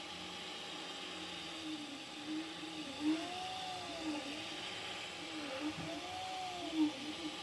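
Prusa MK4 3D printer printing a single-walled cylinder: its stepper motors whine in pitch arcs that rise and fall over and over as the print head traces the circle, over a steady hiss.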